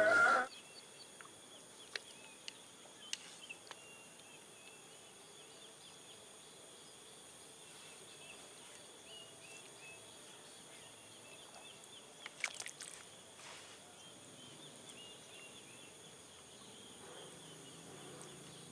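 Quiet outdoor ambience of insects, a steady high drone, with faint bird chirps. A few soft clicks come through, the sharpest about twelve seconds in.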